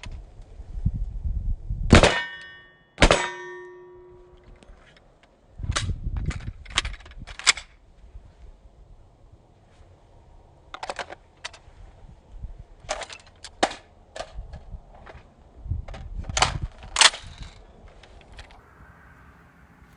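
Gunshots from an AR-15 rifle and a Glock 19 pistol during a shooting drill. Two sharp reports come about a second apart near the start, and the second leaves a ringing tone. Metallic clicks and clacks of gun handling and magazine changes follow, and two more sharp reports come near the end.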